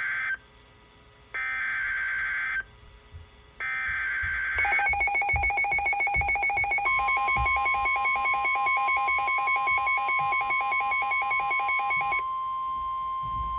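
NOAA Weather Radio Emergency Alert System signal: three short bursts of the SAME digital header, each about a second long, then a rapid pulsing electronic alarm beeping from the receiver. A steady 1050 Hz NOAA warning alarm tone joins about seven seconds in and carries on alone once the beeping stops, about twelve seconds in. This signals a new warning being broadcast.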